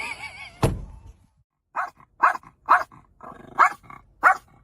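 A dog barking repeatedly in short sharp barks, about two a second, starting a couple of seconds in.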